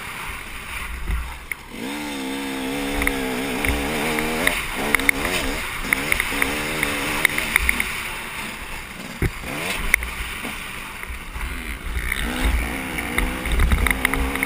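Dirt bike engine revving up and down as it is ridden hard round a motocross track, its pitch climbing and dropping through the gears. Wind buffets the helmet-mounted microphone, with scattered sharp clicks throughout.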